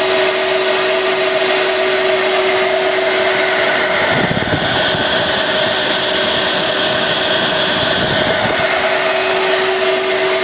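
A vacuum cleaner motor blowing air through a small Garrett T15 turbocharger: a steady motor whine with a rush of air as the turbo spins. From about four seconds in to about eight seconds, a higher whine and a low rumbling air rush are added, then ease off.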